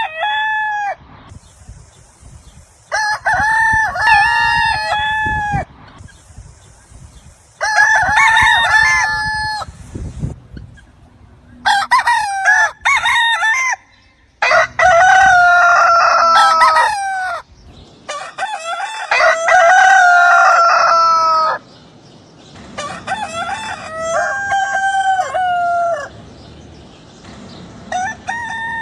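Roosters crowing, one long crow after another every few seconds, about eight in all, each call falling in pitch at its end and the crows pitched differently from one another.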